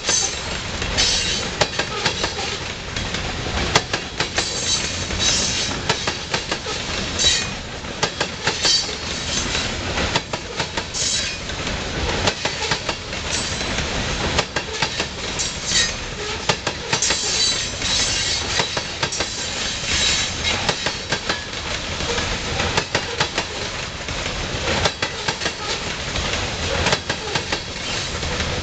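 Loaded covered hopper cars of a grain train rolling past: a steady rumble of steel wheels on rail, with irregular clicks and clacks over the rail joints and repeated brief high-pitched wheel squeals.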